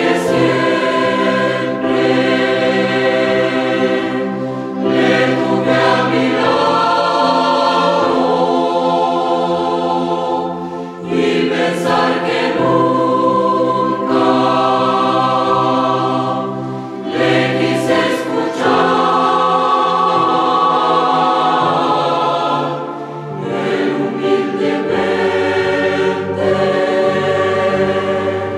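Youth church choir singing a Spanish-language hymn in several voice parts over a keyboard accompaniment with sustained bass notes.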